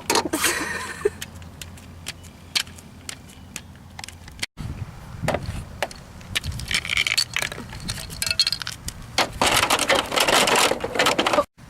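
Furniture being carried out and set down: scattered knocks, bumps and clattering rattles, with louder stretches of clatter in the second half. The sound is broken by abrupt cuts.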